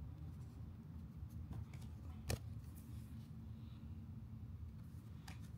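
Faint handling of trading cards over a low room hum, with a few light ticks and one sharper tick a little over two seconds in.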